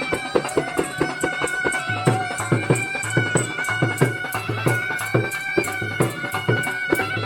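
Snake charmers' been (pungi) playing a wavering, reedy melody over a steady drone, with drums keeping a quick, regular beat.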